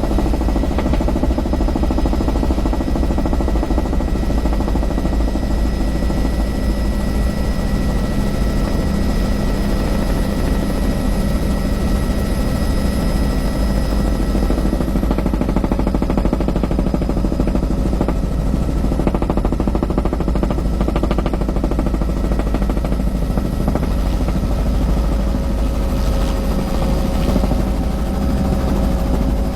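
Low-flying power-line inspection helicopter running loud and steady close by, a constant low rotor rumble with a high engine whine over it. A lower tone joins in near the end.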